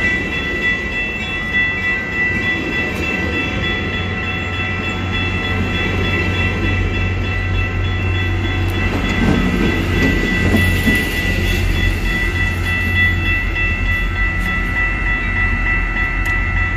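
Coaster commuter train passing at close range: bilevel coaches rolling by with a low diesel locomotive rumble that grows stronger a few seconds in, under a steady high-pitched ringing.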